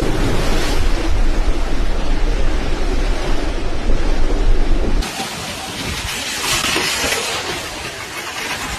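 Strong wind blowing and buffeting the microphone with a heavy low rumble. After an abrupt cut about five seconds in, it goes on as a lighter, hissing rush.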